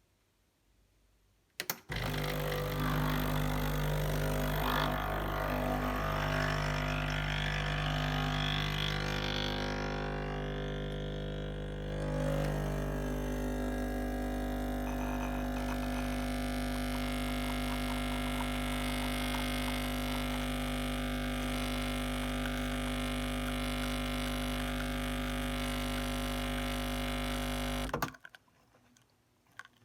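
Breville Barista Express espresso machine's vibratory pump buzzing steadily while it pulls a shot, cutting in sharply about two seconds in and stopping abruptly after about 26 seconds, with extra hiss in the first ten seconds or so.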